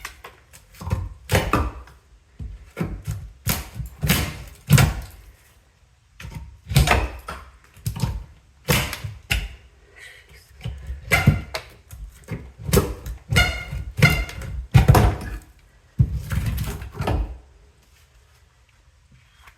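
Irregular wooden knocks and thunks from demolishing termite-damaged floorboards, about one or two a second, stopping about three seconds before the end.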